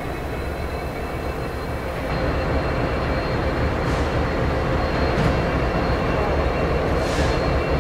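Diesel-electric freight locomotives' engines running with a steady low rumble, a little louder once the pair moving slowly through the yard comes in about two seconds in. A short hiss comes near the end.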